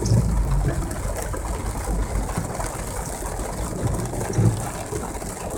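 BMW M3 engine running low and steady, with an even hiss over it.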